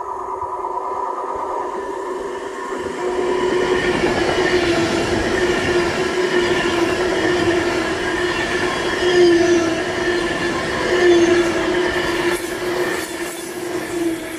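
Avanti West Coast Class 390 Pendolino electric train passing through the station at speed. A rushing rumble carries a steady high whine from the train on the rails, growing louder from about three to four seconds in as the train reaches the platform, with a few sharp clicks near the end.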